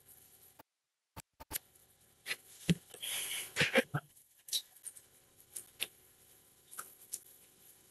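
Faint, irregular clicks and taps of keys being pressed while a division is worked out, with a short rustle about three seconds in.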